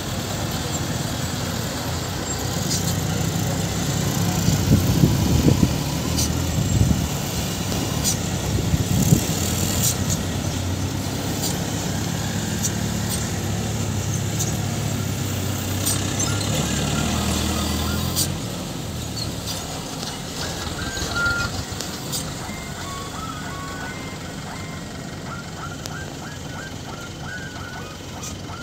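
Diesel engines of loaded dump trucks running as they drive past on a dirt road. A deep rumble swells about four to ten seconds in and fades after about eighteen seconds, with scattered clicks and rattles throughout.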